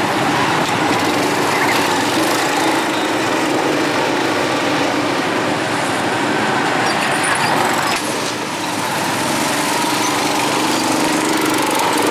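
Small go-kart engines running with a steady drone, easing off briefly about two-thirds of the way through.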